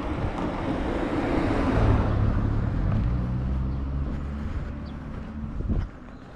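A car passes close by. Its tyre and engine noise builds to a peak about two seconds in, then a steady low engine hum fades away near the end.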